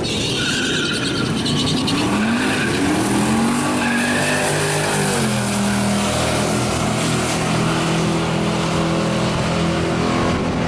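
Drag-racing car accelerating hard down the strip, with tyre noise at the start. The engine pitch climbs for a few seconds, drops at a gear change about five seconds in, then holds steady.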